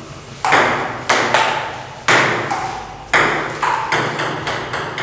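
Table tennis rally: the ball clicking sharply off the paddles and the table, each click followed by a short ringing echo. The loudest hits come about once a second at first, then the clicks come quicker and softer.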